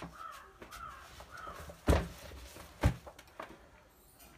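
Two sharp knocks about a second apart. Faint short calls repeat about every half second in the first second and a half.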